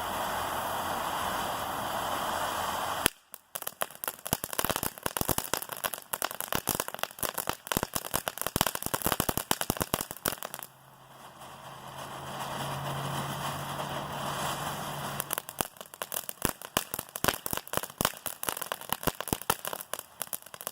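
Fan-shaped firework fountain burning: a steady spraying hiss, switching about three seconds in to dense crackling. The hiss returns near the middle with a low steady hum, then gives way to crackling again a few seconds later.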